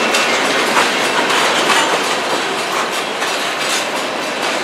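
Freight train's tank cars rolling past at close range: a steady rolling and rattling noise with repeated clicks of the wheels over the rail joints.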